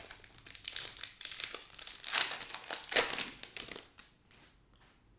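Foil trading card pack wrapper crinkling as it is handled, with the loudest crackles a little after two and three seconds in, then dying away.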